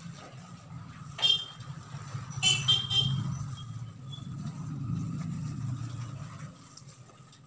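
A motor vehicle running past, a low sound that swells and then fades toward the end, with two short, high horn toots about one and two and a half seconds in.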